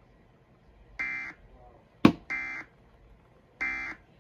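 Emergency Alert System end-of-message signal: three short bursts of SAME digital data tones, each about a third of a second, spaced a little over a second apart, marking the end of the statewide required monthly test. A sharp click sounds just before the second burst.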